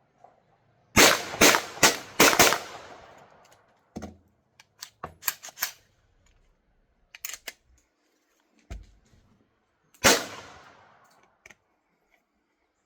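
Suppressed 9mm Extar pistol firing through a Banish 45 suppressor: five quick shots about a second in, then a single shot near the end. Smaller clicks and knocks come in between.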